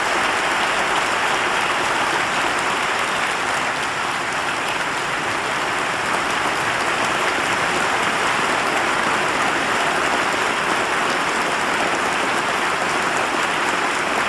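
Large audience clapping in a steady, dense ovation.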